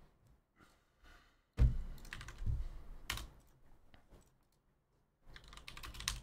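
Computer keyboard typing, with a louder thump on the desk about one and a half seconds in, scattered keystrokes after it, and a quick run of keystrokes near the end.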